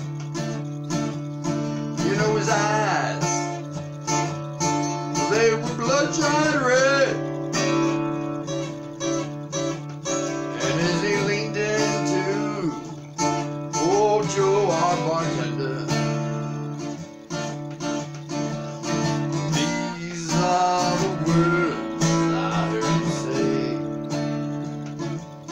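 Steel-string acoustic guitar strummed and picked through an instrumental passage between sung verses, with a voice joining in wordlessly at a few points.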